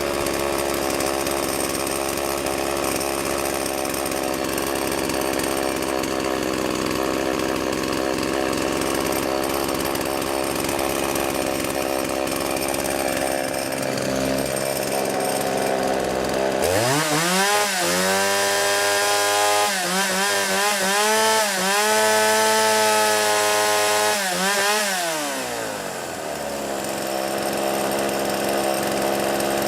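Partner 465 two-stroke chainsaw idling steadily, then revved up to high speed at about the middle, the pitch held high and wavering for about eight seconds before it drops back to idle. The carburetor has not yet been adjusted.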